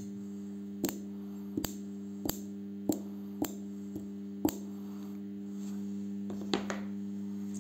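Microwave-oven-transformer spot welder humming steadily under load, with about seven sharp snaps as its copper electrodes touch and spark against a thin metal strip on a lithium-ion cell. The hum grows a little louder near the end. The welds are poor: without a pulsed-current circuit the thin strip melts before it welds properly.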